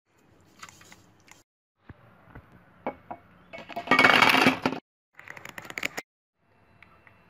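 Handling noise from art supplies being picked up and moved in the hand, in short separate stretches with small clicks and scrapes. The loudest is a rustling, scraping burst about four seconds in.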